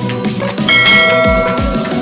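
A bell sound effect for a subscribe animation's notification bell rings once, about two-thirds of a second in, and fades over about a second. It plays over background music.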